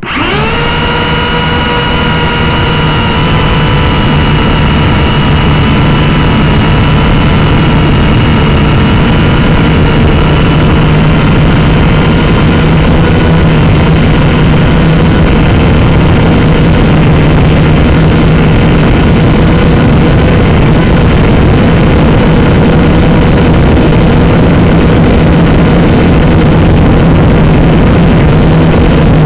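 Syma X5C quadcopter's motors and propellers whining loud and close, as heard from the drone's own camera. The pitch sweeps sharply up in the first moment as the motors spin up to lift off from the grass, then holds steady in flight.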